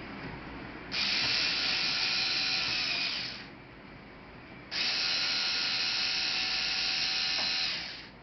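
Small electric screwdriver running in two bursts of about two and three seconds, a steady high whine, driving the laptop's screws.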